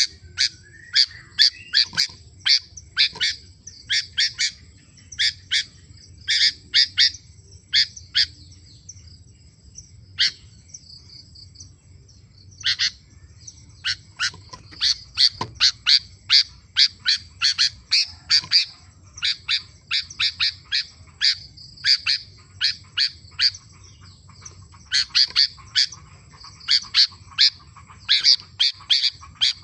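Sooty-headed bulbul (kutilang) singing: quick runs of short, sharp, bright notes, repeated in bursts with brief pauses about ten seconds in and again near the end.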